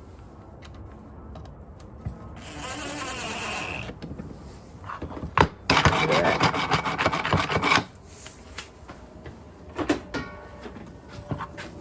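Plastic parts of a spin mop bucket's pedal and spin mechanism being handled and fitted back together: rubbing and rasping, a sharp click, then about two seconds of rapid clicking, with a few knocks near the end.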